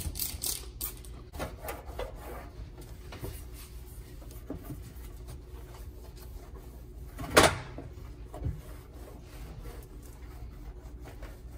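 A spray bottle's trigger pumped several times in quick succession, then a microfiber cloth rubbing and scrubbing across a glossy gas stovetop around the burner caps. A single sharp knock a little past halfway is the loudest sound, with a softer one about a second after.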